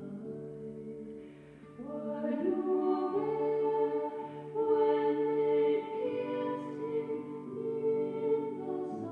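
Slow choral music: voices singing long held chords that shift every few seconds, growing louder about two seconds in.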